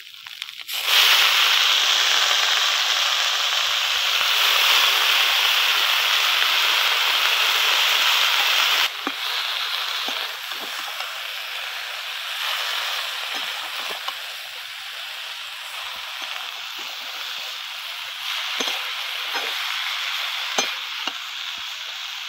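Wet vegetables dropped into hot oil in a metal wok: a loud burst of sizzling starts about a second in, then falls away sharply at about nine seconds to a softer sizzle as they are stirred, with scattered clinks of the spatula against the pan.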